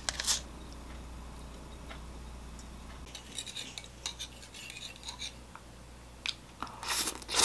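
Metal fork and spoon clinking and scraping lightly against a wooden bowl as buckwheat noodles are twirled, in scattered small clicks from about three seconds in. A louder burst of noise comes near the end.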